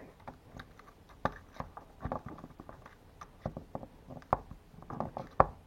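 Irregular small clicks and taps of metal deadbolt parts being handled as the tailpiece is lined up and slid into the latch's tab.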